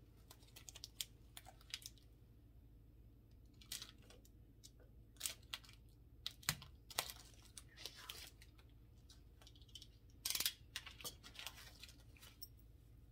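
Plastic doll packaging crinkling and clicking as it is cut and pulled away from a doll's head by hand, in scattered irregular snips and rustles with a louder crackle about ten seconds in.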